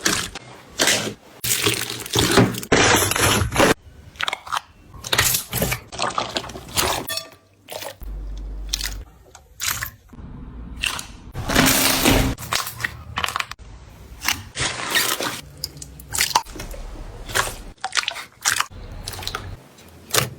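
Slime being squished and pressed by hand: an irregular run of short squishes and clicks, with a couple of brief lulls.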